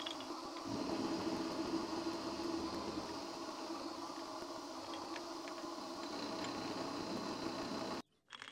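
Amadeal VM32L bench milling machine's belt-driven spindle, powered by a brushless motor, running steadily with a low hum while a four-flute carbide end mill face-mills a mild steel block. The machine sound stops abruptly near the end.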